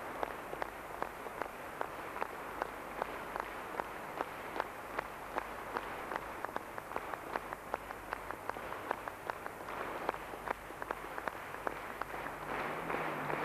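An audience applauding in rhythmic unison, about two and a half claps a second.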